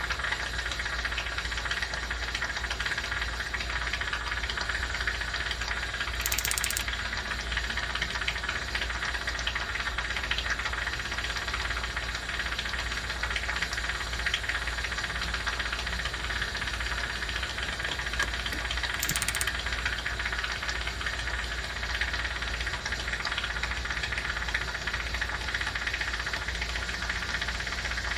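Jeweler's soldering torch set-up giving a steady hiss with a low hum underneath, the torch not yet behaving and hard to get going. Two brief high-pitched sounds break in, about six seconds in and again near nineteen seconds.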